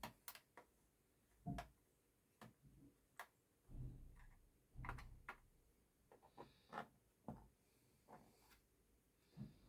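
Faint, irregular clicks and light knocks from a screwdriver and small screws being worked loose and handled on a laptop's plastic underside.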